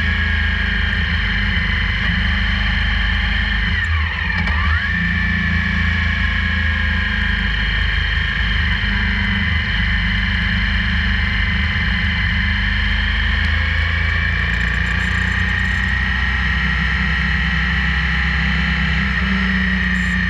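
Motorcycle engine running steadily at road speed, recorded from a camera mounted on the bike, with road and wind noise. About four seconds in, the engine pitch briefly shifts and the sound dips for a moment.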